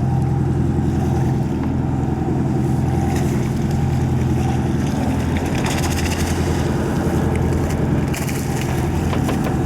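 Sport-fishing boat's engine running steadily, a low even drone, with a few light clicks and knocks in the second half.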